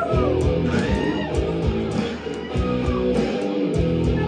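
Live rock band playing: strummed electric guitars over bass and a steady drum beat with regular cymbal hits.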